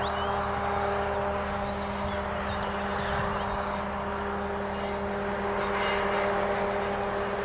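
SNCF BB 69000 diesel-electric locomotive's engine heard across open country, a steady drone with a low hum, as it hauls a train of coaches.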